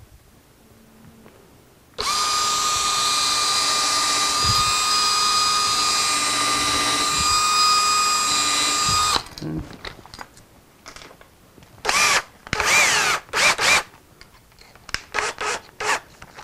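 Cordless drill boring into MDF, running at a steady speed for about seven seconds. A few seconds later come several short trigger bursts, the motor's pitch rising and falling with each, then a few brief blips near the end.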